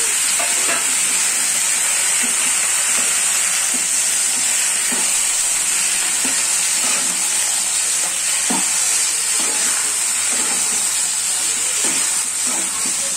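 Cubed pumpkin sizzling in hot oil with spices in a frying pan, stirred with a metal spatula that scrapes the pan now and then.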